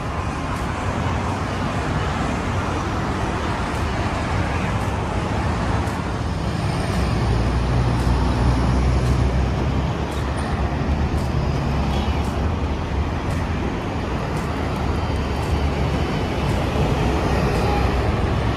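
City street traffic: a steady wash of road noise with engine rumble, swelling about seven to ten seconds in as a heavier vehicle passes.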